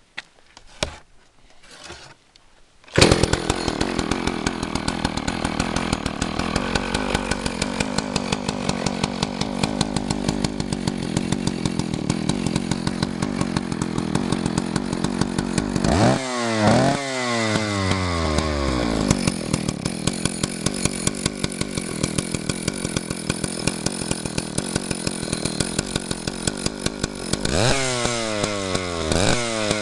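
Vintage Husqvarna 185 CD two-stroke chainsaw starting up about three seconds in, after a few clicks, and then idling steadily. It is revved up sharply and winds back down to idle twice, once about halfway through and again near the end.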